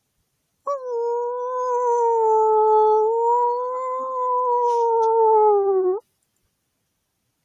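A single long wolf-style howl, about five seconds, holding a fairly steady pitch before sliding down and stopping abruptly.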